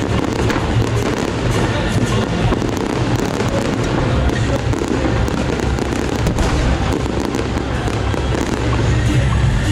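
Fireworks going off in a dense, continuous barrage of crackles and pops over a low rumble, with music playing alongside.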